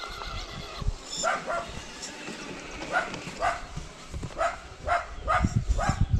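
A dog barking in short, separate barks, about eight of them, coming faster towards the end, with some low thuds near the end.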